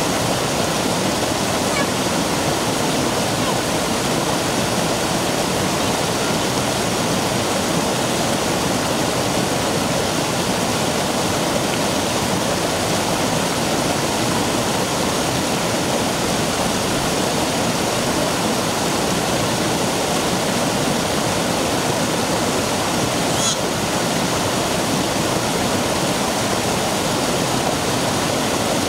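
Steady rush of a shallow mountain stream cascading over a rock slab.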